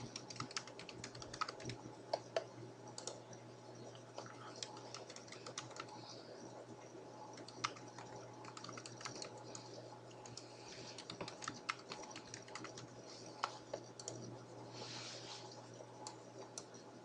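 Computer keyboard keys clicking in irregular runs of typing, faint, over a low steady hum.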